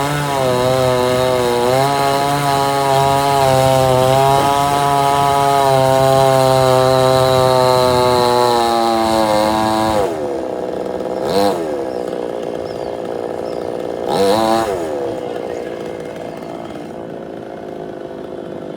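Two-stroke chainsaw running at full throttle through a cut, its pitch sagging slowly under load for about ten seconds, then dropping back to idle. Two short throttle blips follow while it idles.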